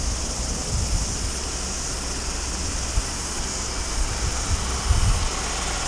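A car driving slowly up the road towards the microphone, under wind buffeting the microphone in low gusts, with a steady high insect chirr behind.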